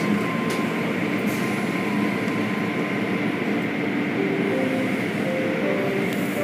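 Automatic car wash heard from inside the car: water spraying and cloth brush strips scrubbing and slapping against the car, over a steady mechanical rumble.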